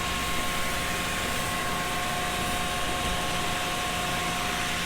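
Farm machinery running steadily: an even, fan-like rushing noise with two steady whining tones held over it.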